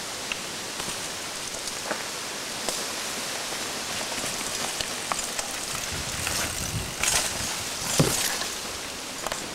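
Mountain bike passing on a rocky downhill trail: tyres and frame rattling over rock and brushing through undergrowth, with scattered clicks that build to louder knocks and rustling about seven and eight seconds in.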